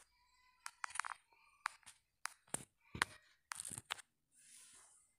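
A metal spoon knocking and scraping against a stainless steel bowl as dry gram flour and spices are stirred: a string of irregular sharp clinks, then a soft rustling scrape near the end.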